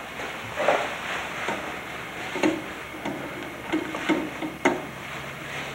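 Switches on a space shuttle trainer's cockpit panel being flipped: a series of sharp clicks at irregular intervals, about seven in all, each with a brief hollow ring.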